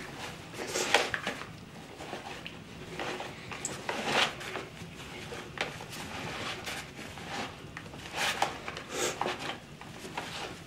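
Hands kneading yeast dough in a plastic bowl: soft, irregular squishes and pats, a few louder ones about a second in, around four seconds in, and again near the end.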